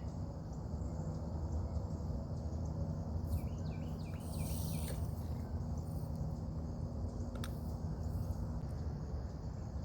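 Steady high buzz of insects with a run of short bird chirps a few seconds in, over a low steady hum. One sharp click about two-thirds of the way through.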